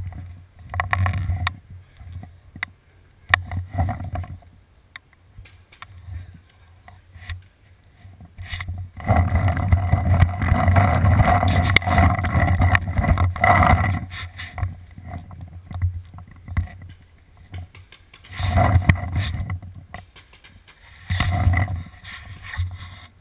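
Paintball game heard from a player's body-mounted camera: scattered sharp pops of paintball markers firing and paintballs striking barricades. Long stretches of loud rustling and scuffing noise come from the player moving, the longest from about nine seconds in for some five seconds.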